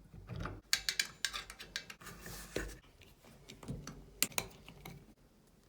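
Irregular clicks and clinks of hard objects being handled, with a short hiss about two seconds in.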